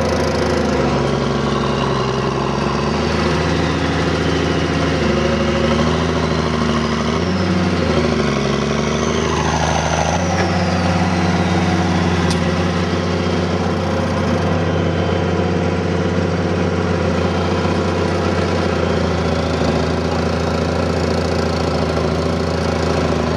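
Allis-Chalmers D-19 tractor's six-cylinder engine running while plowing, heard from the operator's seat. The engine note dips and recovers several times in the first ten seconds, then holds steady under load. A faint high whine rises and falls near the middle.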